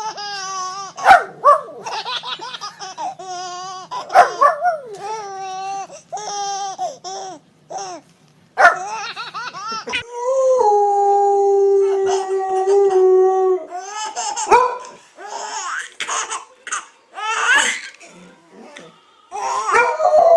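A baby laughing in repeated bursts of squeals and giggles, mixed with a dog's barks. About ten seconds in, one long steady held note lasts several seconds.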